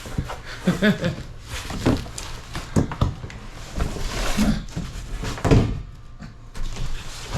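Cardboard shipping box being opened and handled: flaps and packing scraping and rustling, with scattered knocks and thumps.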